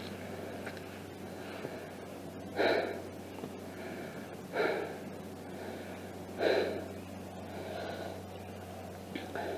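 A tired walker's heavy breathing on an uphill climb, three loud gasping breaths about two seconds apart. Between them a steady low background hum and rustle.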